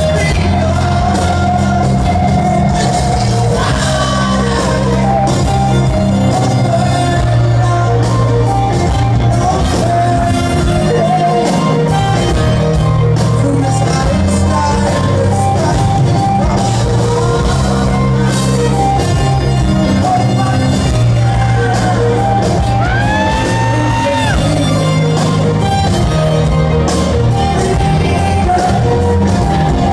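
Live band playing a loud, sustained instrumental passage of a soul-rock ballad in a large hall, with wordless shouts and wails over it.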